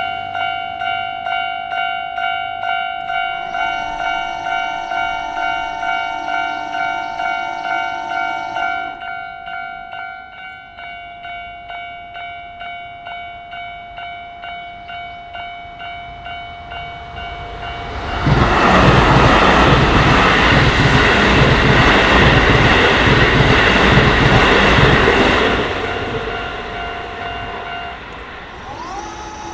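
Japanese level-crossing warning bell ringing in a steady, quick electronic ding-ding, about two strikes a second. A train horn sounds a long blast from about 4 s to 9 s. A Keisei Main Line train passes loudly for about seven seconds in the second half, its wheels clacking rhythmically over the rail joints. The bell stops shortly before the end.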